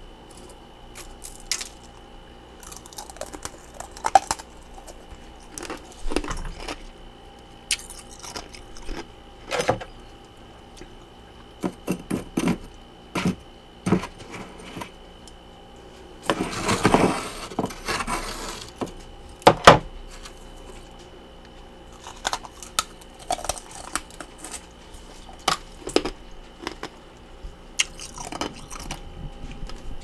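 A metal spoon scraping and chipping at packed freezer frost, with scattered clinks and taps of the spoon. About halfway through there is one longer, louder scrape through the frost.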